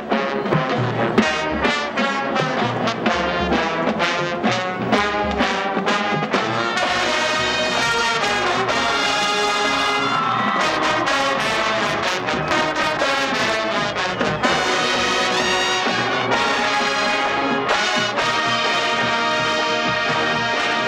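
Marching band playing outdoors. Drum hits drive the first several seconds, then the brass section, sousaphones included, comes in with loud held chords.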